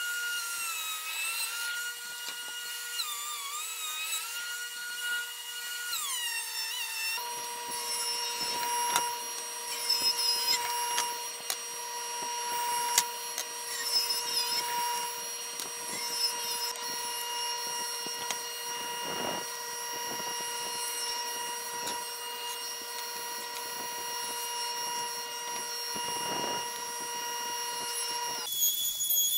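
Power tools milling white ash boards. For about the first seven seconds a benchtop thickness planer's motor whines, wavering in pitch under load. After that a table saw runs steadily, its pitch sagging briefly a few times as the blade cuts.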